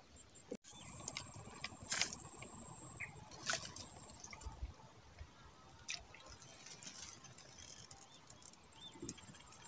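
Faint outdoor ambience at a swamp ditch: a steady high insect drone, with a few soft ticks and taps and a couple of tiny chirps.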